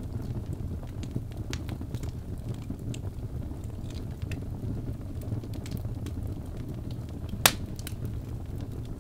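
Wood fire burning, with a steady low rush of flames and scattered crackles from the burning logs. One loud pop comes late on.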